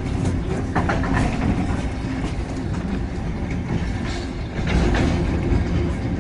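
Train running along the track, heard from inside the carriage: a steady low rumble with scattered clicks and clacks of the wheels.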